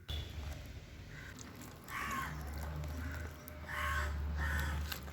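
A bird, likely a crow, giving several short calls in a row over a low steady rumble.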